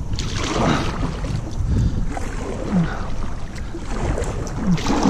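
Double-bladed kayak paddle strokes: the blade dips and pulls through the water about every second, each stroke a splashy swish with drips, over a steady low rumble of wind on the microphone.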